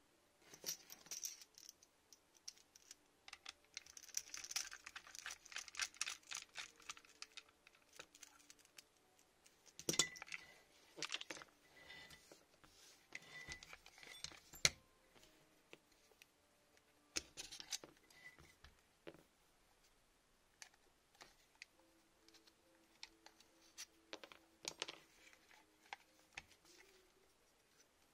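Faint, irregular clicks, taps and rattles of small metal and plastic parts being handled as an airsoft AEG's lower receiver is taken apart, with a few sharper knocks in the middle.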